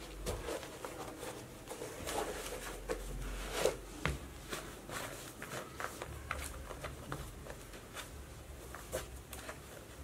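Rustling, scuffing and small irregular clicks as a pair of CTR Coaster trekking shoes is pulled onto the feet and the laces are pulled tight and tied.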